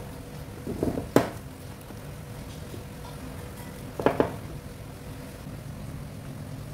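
Hands pressing and slapping soft pizza dough in a glass bowl, with sharp knocks about a second in and again around four seconds in, over quiet background music.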